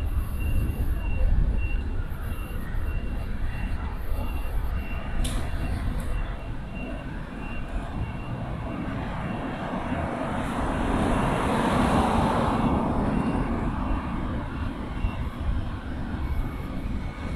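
City traffic ambience: a steady low rumble and distant traffic hum. A louder engine noise swells and fades about ten to thirteen seconds in, and a faint high tone pulses on and off through the background.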